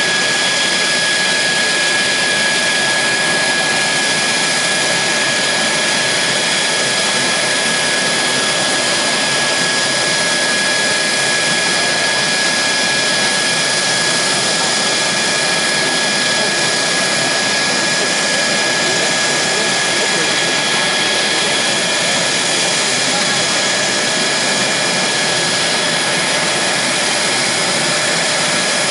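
Mitsubishi F-2 fighter's F110 turbofan running steadily on the ground during an engine run-up: an even jet noise with a steady high whine over it.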